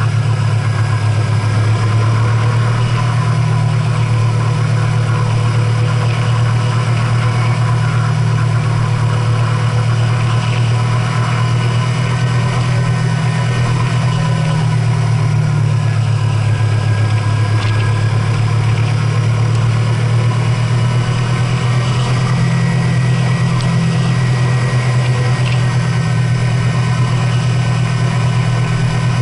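A vehicle's engine running steadily, a continuous low drone that shifts slightly in pitch now and then.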